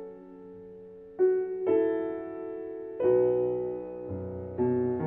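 Soft background piano music: slow, held chords, with a new chord struck about every second or two.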